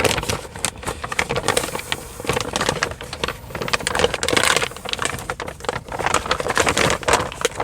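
Rapid, irregular clicking and rattling of small plastic and metal parts as the door latch cables and their fittings are handled and tugged.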